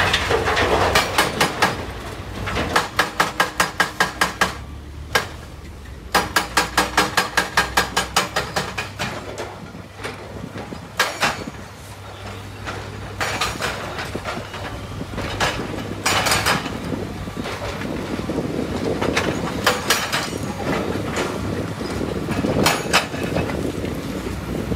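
Heavy machinery running: a Komatsu PC300 excavator's diesel engine hums steadily while it works loading andesite rock into a dump truck. Two runs of rapid metallic clanks, about five or six a second, come in the first eight seconds, followed by several scattered heavy crashes.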